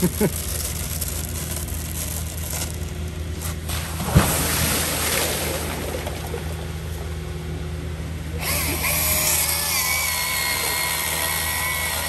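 Palm tree crown dropping into canal water about four seconds in, a sharp smack followed by splashing, over the steady hum of the crane barge's engine. From about two-thirds of the way through, a Milwaukee battery chainsaw runs with a steady whine, cutting through the palm trunk.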